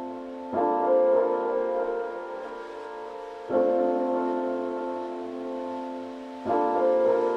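Background piano music: sustained chords struck about every three seconds, each fading slowly.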